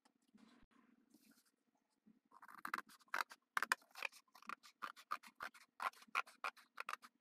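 Scissors cutting through corrugated cardboard with a paper template glued on it: a run of crisp snips, about three a second, starting about two seconds in. Before that, faint rustling of the paper and cardboard being handled.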